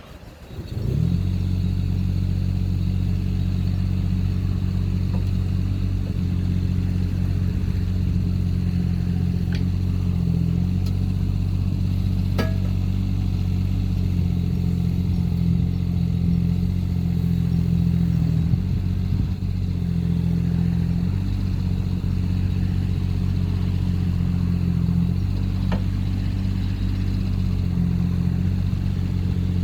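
Hanix H22B mini excavator's Kubota L3E three-cylinder diesel engine running at a steady speed, coming in about a second in, with a few faint clicks over it.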